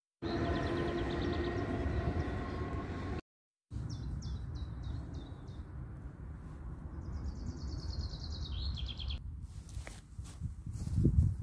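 Small birds chirping and trilling over wind rumbling on the microphone. A steady hum of several tones runs through the first few seconds, and a low thump comes near the end.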